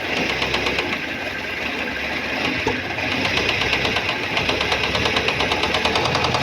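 Car engine idling with a light, rapid, even knocking from inside the engine, which the mechanic takes for a knocking piston; on teardown the piston in the fourth cylinder is found striking the cylinder head.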